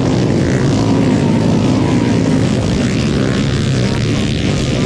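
Motocross bikes' engines running hard at high revs, a loud dense engine noise that holds steady.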